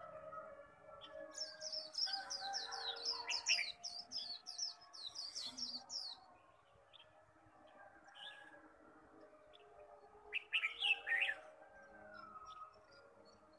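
Caged white-eye (khuyên) singing its fast twittering 'líu' song: a long run of quick, high, downslurred notes starting about a second in and lasting some five seconds, then a shorter burst of notes about ten seconds in.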